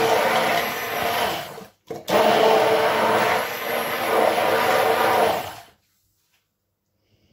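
Electric hand (immersion) blender running in a tall beaker, puréeing plums with warm water and fine semolina. It is a steady motor hum. It stops for an instant just under two seconds in, starts again, and cuts off a little under two seconds before the end.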